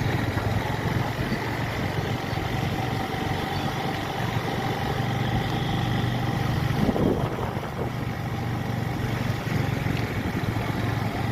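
An engine idling steadily: a low, even hum with a faint steady whine above it.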